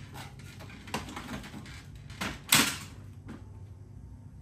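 Plastic clicks, knocks and rattles of the car's front grille being pried and worked loose by hand, with a short louder clatter about two and a half seconds in.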